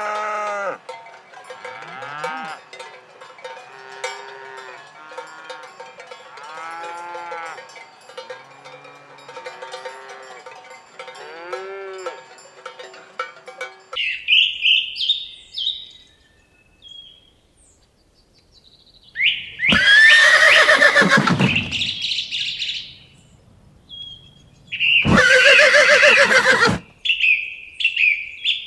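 Cattle mooing repeatedly over the steady clank and ring of cowbells. About fourteen seconds in, the sound cuts to small birds chirping, broken by two loud, drawn-out animal calls of about two seconds each.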